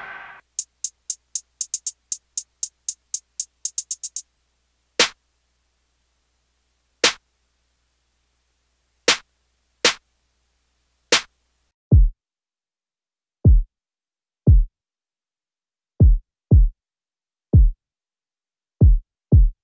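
Programmed drum-machine parts played one at a time, each on its own. First a run of quick high ticks like a hi-hat pattern, speeding into a roll at the end. Then a sparse snare pattern of five sharp hits. Then a trap kick pattern of eight deep thumps, each dropping in pitch.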